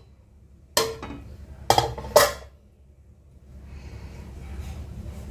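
A utensil knocking against a cooking pot of freshly cooked pulao: one clank about a second in, then two more in quick succession, followed by faint low rustling.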